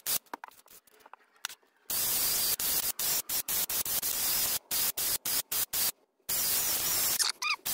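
Wire wheel brush spinning on a cordless drill, scrubbing carbon off Arctic Cat APV power valve parts. It comes as repeated bursts of scratchy noise that start and stop abruptly.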